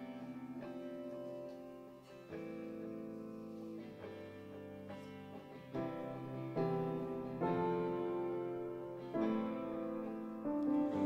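Live worship band playing a slow instrumental song introduction: electric guitar and keyboard chords, changing every second or two and growing louder.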